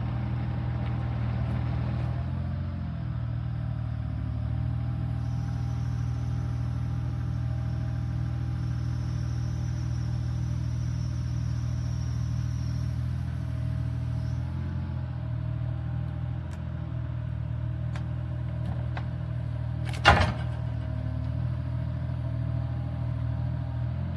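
An engine running steadily at a constant speed, with one sharp loud knock about twenty seconds in.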